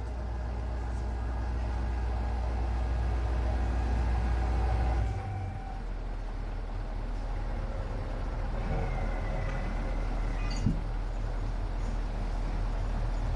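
Steady drone of running construction machinery with a deep hum, which drops and changes character about five seconds in. A faint rising whine follows, then a single click near the end.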